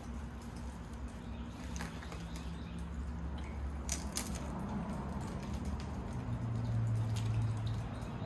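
A person eating crackers out of a plastic bag: a few sharp crunches and crinkles over a steady low background rumble.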